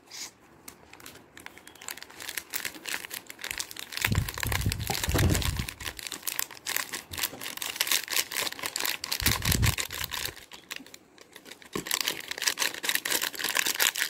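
Foil sachet of powdered milk crinkling as it is handled and squeezed open over a bowl, with a steady run of crackles and two spells of dull low bumping about four and nine seconds in.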